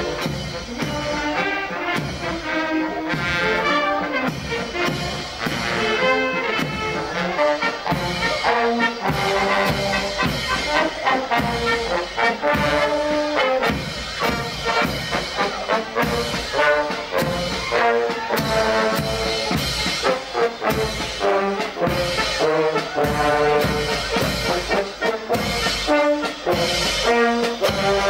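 Marching brass band playing a tune, with trombones prominent and a drum keeping a steady beat.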